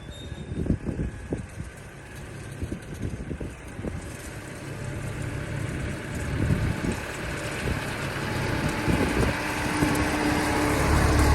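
Farm tractor engine running while pulling a hay rake through a windrowed field, with scattered rattling knocks from the machinery; the sound grows steadily louder and the low engine hum strengthens toward the end.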